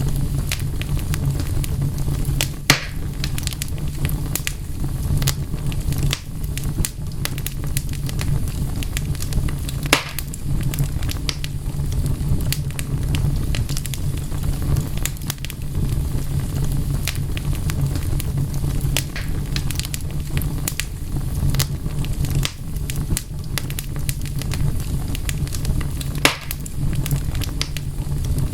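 Wood fire crackling, with scattered sharp pops, a few louder than the rest, over a steady low rumble.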